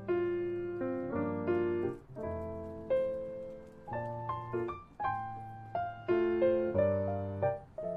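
Background piano music: a gentle melody of struck notes that fade between new ones.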